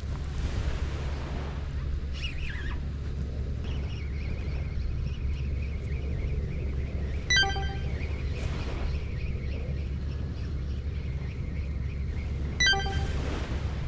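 Wind buffeting the microphone over steady surf, with two short, bright ringing dings about five seconds apart.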